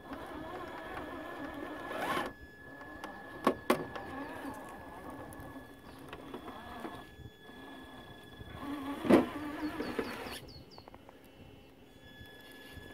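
Traxxas TRX-4 RC scale crawler climbing over rock: its stock 21-turn Titan brushed motor and geared drivetrain whine in spurts as the throttle is worked, over a thin steady high electronic whine. Two sharp knocks of the truck against the stone come about three and a half seconds in, and a louder knock about nine seconds in.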